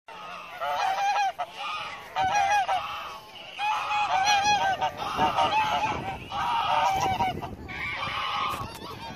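Canada geese honking in several bouts of quick, repeated calls, with short pauses between the bouts.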